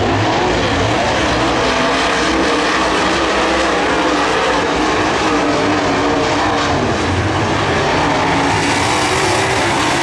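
A pack of UMP dirt modified race cars running at race speed, their V8 engines making a loud, continuous drone whose several pitches waver as the cars go round.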